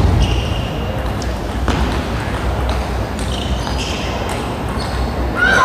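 Table tennis rally: the ball clicks off the bats and the table in quick succession, about two hits a second, over a steady hall hum. Near the end the sound swells as the crowd starts to react to the point.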